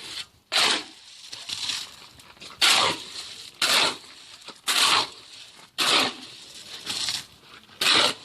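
Shovel scraping through a wet sand, stone and cement mix in repeated strokes, about one a second, as concrete is mixed by hand.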